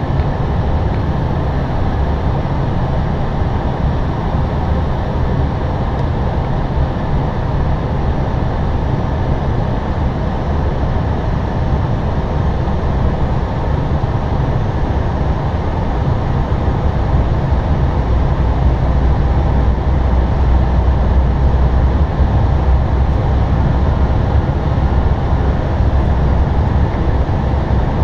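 Steady flight-deck noise of an Airbus A320 in descent: a constant rush of air with a low rumble beneath, growing slightly louder in the second half.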